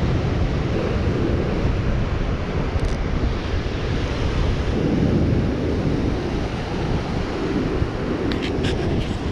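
Surf breaking and washing over a rocky shore, mixed with wind buffeting the microphone: a steady, low-heavy rush. A few faint ticks come near the end.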